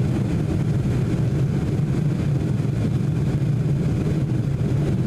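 Steady cabin noise inside a Boeing 747-400 airliner descending to land: an even, low drone of the engines and rushing air.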